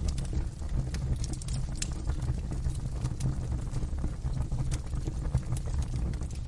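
Wood fire burning in a fireplace: a steady low rumble of the flames with frequent irregular crackles and small pops.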